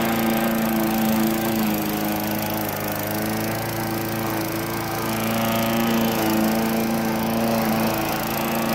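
Poulan Pro push mower's single-cylinder Briggs & Stratton engine running steadily while the mower cuts tall, wet grass.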